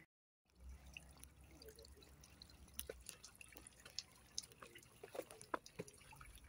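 Faint, irregular drops of water dripping into a pool beneath a fern-covered rock wall, with scattered single plinks. It begins after a brief gap of silence.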